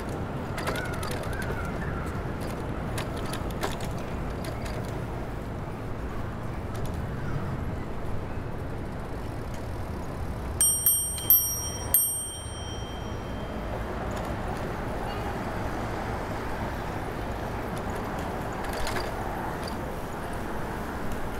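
Bicycle bell rung four times in quick succession about halfway through, each ding ringing on briefly with a bright, high tone. Underneath is a steady rumble of street and riding noise.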